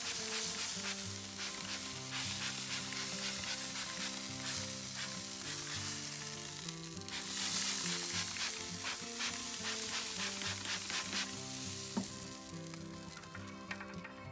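Steady hissing and sizzling as half pig heads on a kamado grill are spritzed with cherry beer from a spray bottle. The hiss swells and eases a few times as the spraying goes on.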